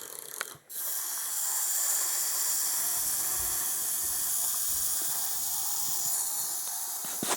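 Steady electronic hissing sound effect from a Thunderbird 5 toy's speaker, starting about a second in and cutting off with a click near the end.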